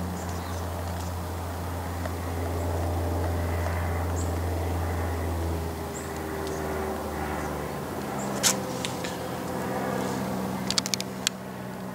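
Steady low engine-like hum that drops away about eight seconds in. A sharp metal clink follows, and a quick run of clinks comes near the end as a metal cover is pried loose and lifted off the M117 V8 block.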